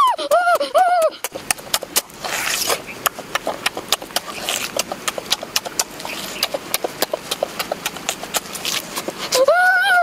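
Close-up eating sounds of a person biting and chewing cooked pig leg: a fast run of wet lip smacks and chewing clicks. A pitched, rising-and-falling 'mmm' of enjoyment comes at the start and again near the end.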